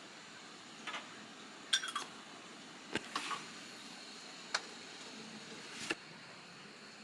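Several light clinks and knocks of dishes or utensils, one about two seconds in ringing briefly, over a faint steady hiss.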